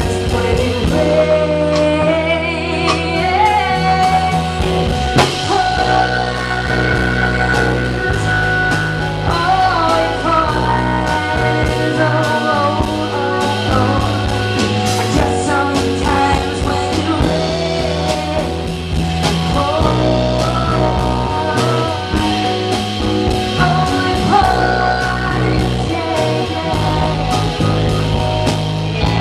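A live rock band playing a song: a woman's lead vocal over electric guitar, keyboard and a drum kit keeping a steady beat.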